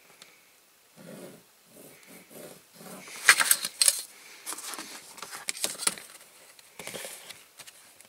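Fold lines being marked on a printed card box blank: a series of short scraping strokes against the card, with sharper clicks and taps in the middle.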